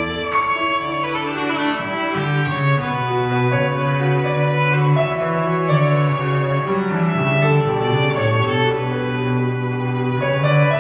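Classical music for bowed strings, violin and cello, playing slow, sustained notes.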